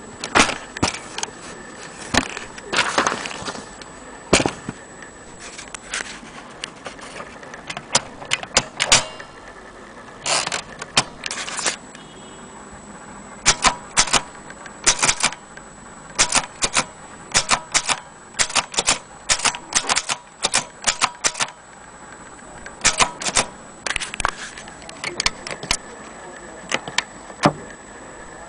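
Vintage portable Corona typewriter being typed on: sharp key strikes in irregular runs, broken by a few short pauses.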